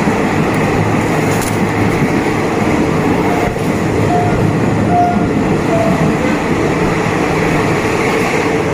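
A passenger train running at steady speed, heard from inside a carriage through an open window: the rumble and rattle of the wheels on the rails.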